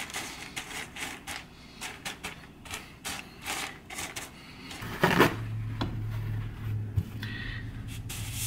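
Dry pinto beans clicking and rattling against each other as hands spread them across a mat. A steady low hum starts about five seconds in.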